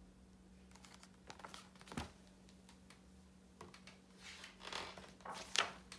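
Pages of a picture book being handled and turned. A few light taps and a sharper click come about two seconds in, then paper rustles and swishes from about four to five and a half seconds.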